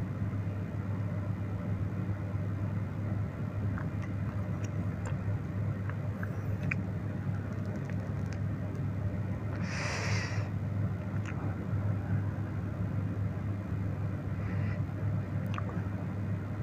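Steady low background hum with a few faint scattered clicks, and a short hissy burst about ten seconds in.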